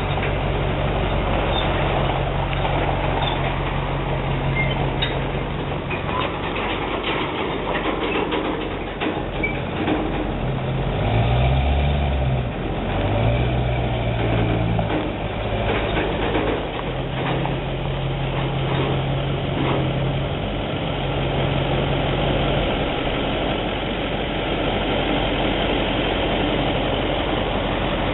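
Chevy pickup truck's engine running while it tows a loaded flatbed trailer over a gravel driveway. Its pitch rises and falls a few times near the middle, and scattered knocks and rattles come from the trailer and gravel.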